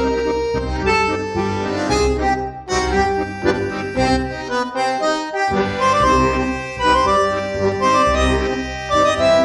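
Background music: a melody of held notes changing pitch over a steady low pulse.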